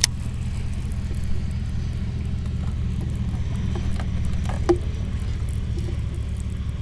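Boat motor running steadily, a low even rumble, with a couple of light knocks at the start and near the middle.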